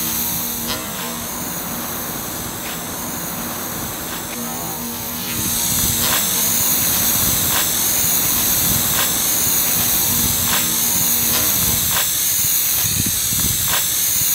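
Aerosol spray-paint can hissing steadily as paint is sprayed, turning louder about five seconds in, with faint ticks at an even pace a little more than once a second.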